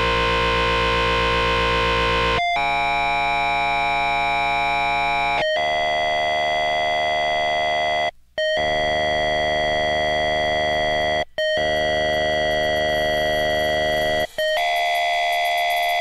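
Electronic techno-pop music: held synthesizer chords that change every three seconds or so, broken by three short gaps of silence in the second half.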